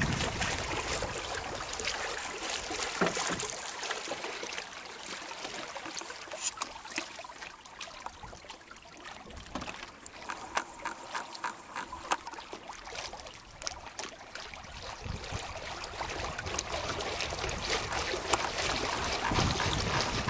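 Water trickling and lapping against the hull of a small poplar-plywood proa under sail, with many small slaps and splashes through the middle. Wind on the microphone, stronger at the start and again near the end.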